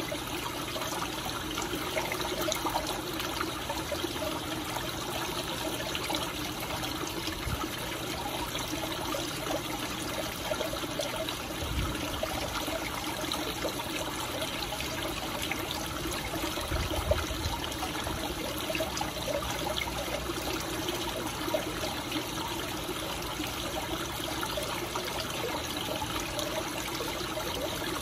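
Steady trickling and splashing of water running into a goldfish pond, with a few soft low bumps now and then.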